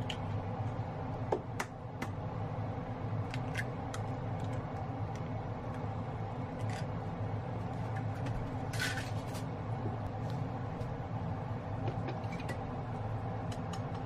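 Egg frying in hot oil in a frying pan, with scattered small pops and crackles over a steady low hum. A couple of sharp knocks come just before two seconds in, and there is a brief louder spit about nine seconds in.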